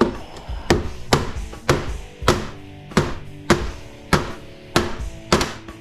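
Background music with a steady beat, a sharp hit a little under twice a second, with sustained pitched notes between the hits.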